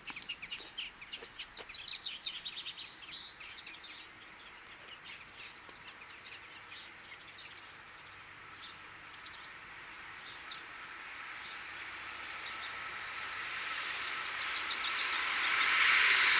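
Small birds chirping and singing, busiest in the first few seconds. From about halfway, the rushing noise of an approaching SNCB passenger train on the rails rises steadily and is loudest at the end.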